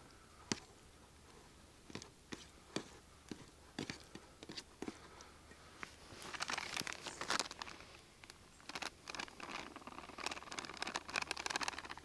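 Hands working sauce into raw chicken pieces in a stainless steel pan, a scatter of small clicks and taps. From about six seconds in, a bag crinkling and rustling as cornflour is poured over the chicken.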